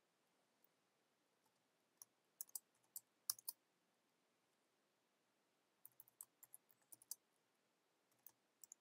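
Faint computer keyboard keystrokes in short, scattered runs of clicks while a serial key is typed in.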